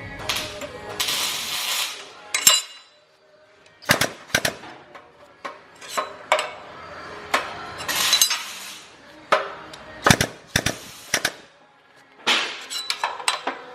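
Irregular metal knocks and clanks from hand work on steel race-car frame parts, with a few short hissing bursts about a second in and again about eight seconds in.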